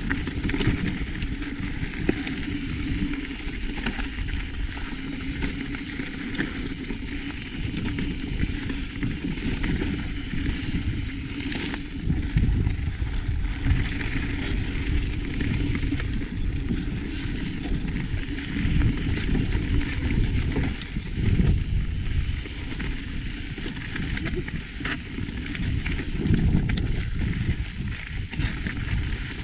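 Mountain bike ridden over a rough, rocky dirt trail: tyres crunching over dirt and stones and the bike rattling with many small knocks, over a steady wind rumble on the microphone.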